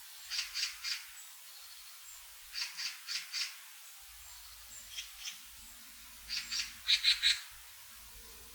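A bird calling in short series of harsh notes: three notes, then four, then two fainter ones, and a louder run of about five near the end.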